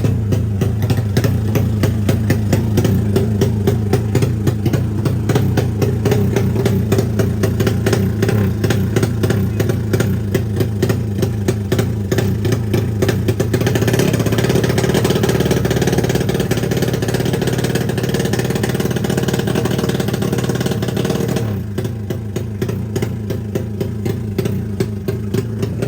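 Drag-race motorcycle engine running with a rapid, lumpy pulse, getting louder and harsher for several seconds past the middle before settling back down.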